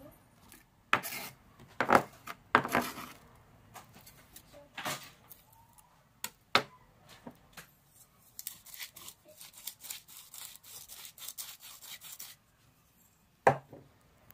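A few knocks as things are handled on a wooden cutting board. Then a salt shaker is shaken in a quick rattling run for about four seconds, and there is a single knock near the end.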